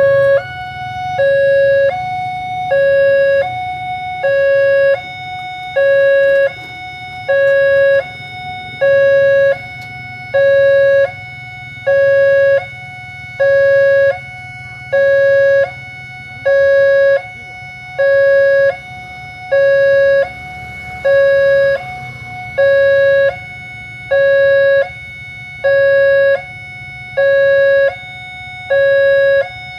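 Railway level-crossing warning siren sounding an electronic two-tone alarm, a lower and a higher tone alternating about once every two seconds, with a steady high tone underneath. A low rumble sits beneath it.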